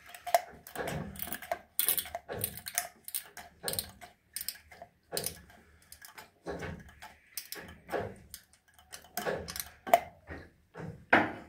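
Uneven run of small metallic clicks and clacks from oil being hand-pumped while the engine is pre-lubricated before starting. The clicks come two or three a second, with a lull midway.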